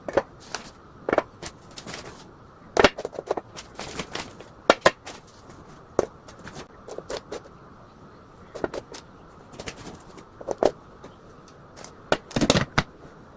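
Irregular clicks, knocks and clatter of hard objects being handled, about a dozen sharp strikes with a brief ring, bunched into a busy flurry near the end.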